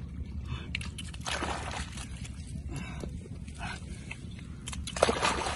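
Muddy water splashing and slapping in a shallow puddle as catfish thrash and are grabbed by hand, in scattered irregular hits with a louder splash about five seconds in. A few faint short squeaks are mixed in.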